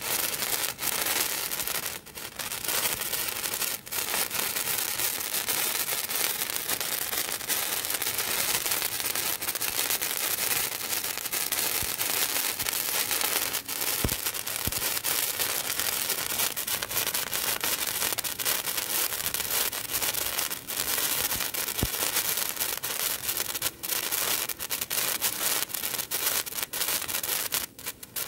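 15 cm colour sparkler burning with a dense, steady crackling hiss of spitting sparks, dipping briefly about two and four seconds in and again near the end.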